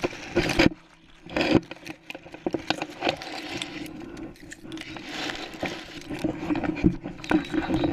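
A large flock of snow geese calling, a dense continuous chorus of honks, with several loud rustles of dry grass brushing close to the microphone.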